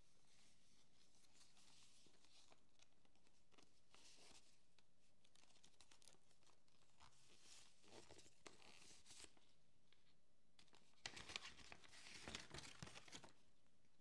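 Faint rustling of a satin ribbon being untied and slid off a cardboard gift box, with a louder run of rustles and crackles about eleven seconds in.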